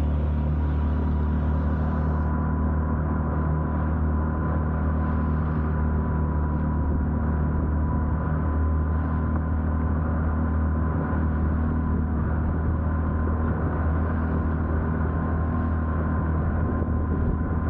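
Boat engine running steadily under way: a constant low drone with a faint steady whine above it.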